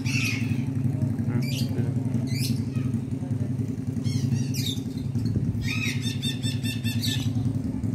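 Red-breasted parakeet (Javan betet) giving shrill squawks several times, with a quick run of calls near the end. Under them runs a steady low mechanical hum like an idling engine.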